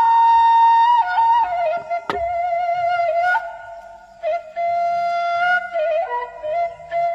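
Background music: a single melody line of held notes that step up and down, with one sharp click about two seconds in.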